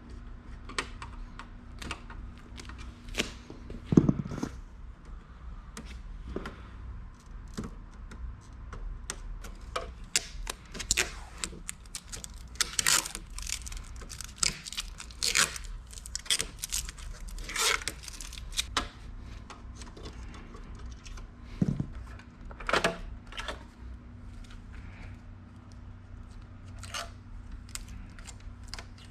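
Hands working on computer hardware during assembly: scattered clicks, metallic rattles and rustling of plastic film or packaging, with a dull thump about four seconds in and another near twenty-two seconds.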